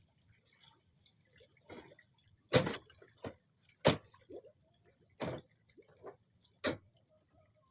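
A handful of sharp knocks, one every second or so, the first about two and a half seconds in and the last near the end.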